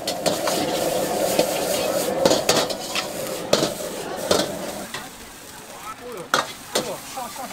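Egg fried rice stir-frying in a wok: the metal ladle scrapes and clanks against the wok while the rice sizzles. The sharp clanks come about once a second and thin out after about five seconds.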